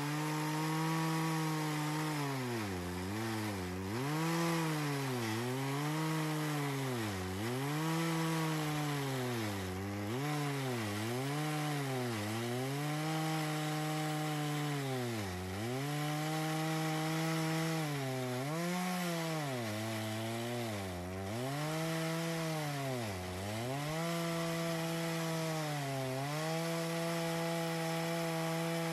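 A Farmertec (Holzfforma) G660 92cc two-stroke chainsaw on a chainsaw mill, ripping a thick cherry slab lengthwise under full throttle. The engine pitch keeps dipping and recovering every second or two as the long bar loads up in the cut.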